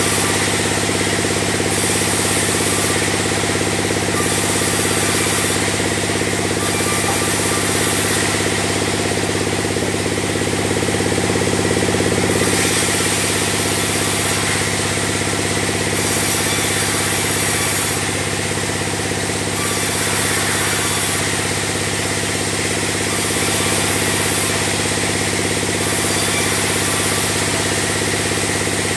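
Large sawmill bandsaw running with a steady machine hum while its blade cuts timber into beams; a higher hiss comes and goes every second or two.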